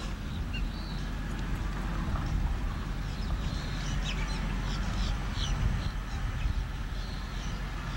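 Birds chirping in short calls, most of them in the middle of the stretch, over a low, uneven rumble.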